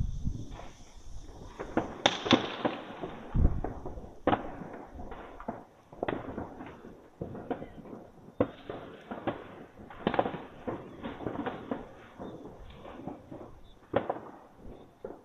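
New Year's Eve fireworks and firecrackers going off all around: many irregular bangs, some loud and close, others distant, with crackling between them.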